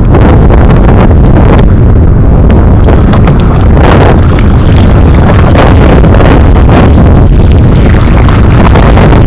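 Heavy wind buffeting the microphone: a loud, constant low rumble with a rough hiss that swells and fades in gusts.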